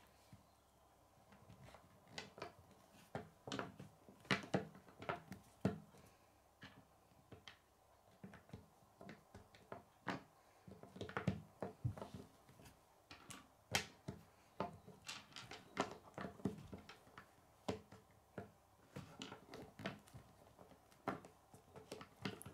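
Chunky Kid K'nex plastic pieces clicking and tapping against each other and the wooden tabletop as they are picked up and pressed together: a scattered, irregular run of light clicks.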